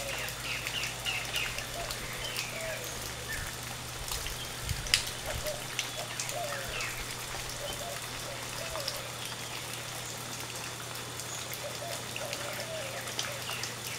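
Background forest ambience: scattered short bird chirps over a steady low hum, with one sharp tap about five seconds in.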